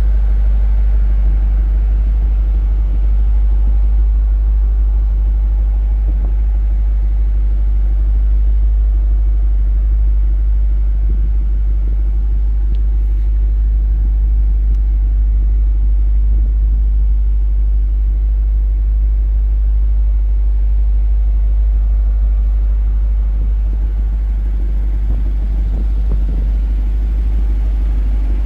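2022 Chevrolet Corvette's 6.2-litre LT2 V8 idling, a low, even rumble that holds steady throughout.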